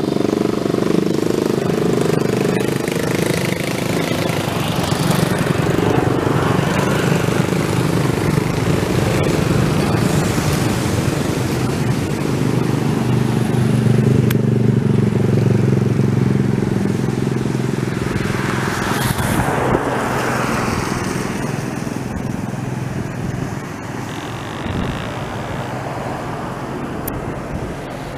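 Engine of a small motorized outrigger canoe (bangka) passing close by: a steady motor drone that is loudest about halfway through, then eases off as the boat moves away. A brief rush of noise comes about two-thirds of the way in.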